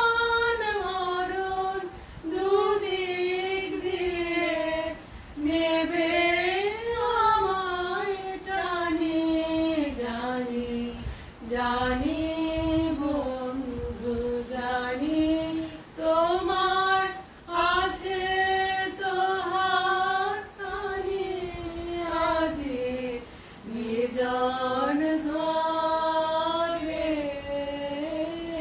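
Two women singing a slow Bengali song together without instruments, in long held, gliding notes with short pauses for breath between phrases.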